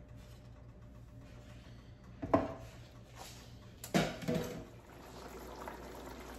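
A spatula knocking against a pan of curry sauce and set down: one sharp knock about two seconds in and two more close together near four seconds, over a low steady hum.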